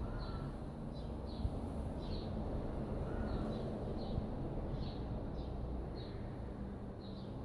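A small bird chirping repeatedly, short high chirps about two a second, over a steady low background rumble of outdoor noise.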